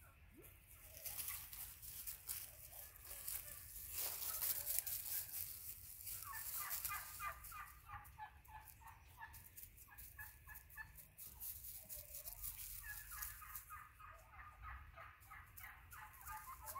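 Dry leaves rustling and crunching under a dog running off across the leaf litter. Then a bird's rapid, rattling run of notes, twice: about six seconds in and again near the end.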